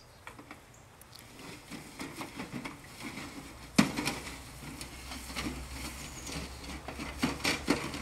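Footsteps on dry grass, with scattered rustles and light knocks, and one sharper knock about four seconds in.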